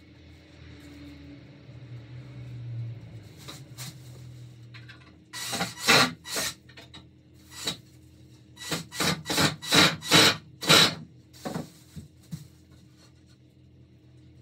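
Rubbing strokes against the bare wood of a pine ladder-style shelf frame. A short spell comes about five seconds in, then a run of about six quicker strokes, roughly two a second, from about eight and a half to eleven seconds.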